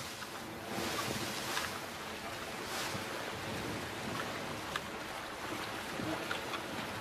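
Sea waves swelling and washing, with wind over the water, and a few faint clicks in the second half.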